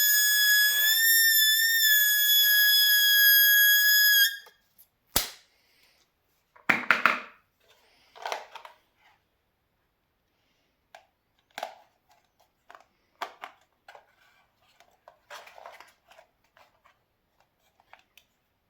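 A balloon letting its air out through the stretched neck: a steady high squeal that wavers slightly and stops about four seconds in. Then a single sharp snap, followed by scattered short rubbery squeaks and rustles.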